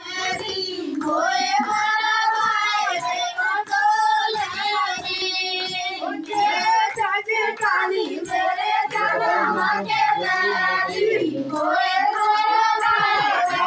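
A high singing voice carrying a melody in long, wavering held notes, with faint clicks running through it.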